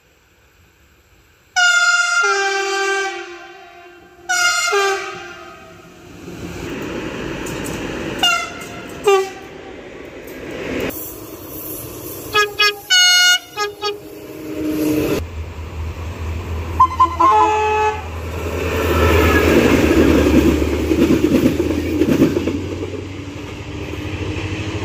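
A train's horn sounding a long blast, then several shorter blasts and a quick run of short toots about halfway through. A train then rumbles past, loudest in the last third.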